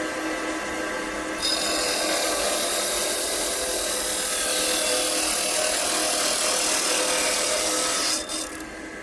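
Electric power cutter's abrasive disc cutting through metal: the motor whines steadily, the disc bites in about a second and a half in with a loud, hissing grind, and it eases off near the end with the motor still running.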